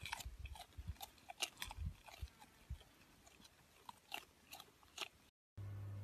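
An alpaca chewing close up, a faint, irregular run of crunchy clicks and ticks with a few soft low thumps.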